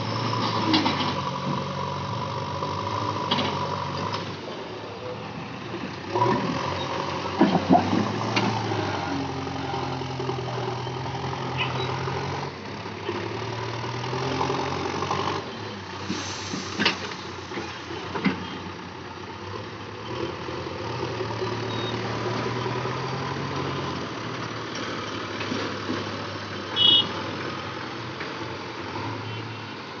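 JCB 3DX backhoe loader's diesel engine running under working load, rising and falling every few seconds as the loader is driven and the bucket is worked, with several sharp metal clanks.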